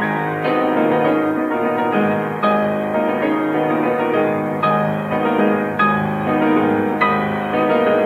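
Solo piano playing classical music, dense sustained notes with loud accented chords struck every second or two.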